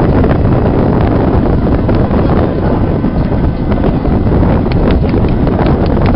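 Strong wind buffeting the microphone, a steady low rumble and hiss that covers everything else, with a few faint ticks near the end.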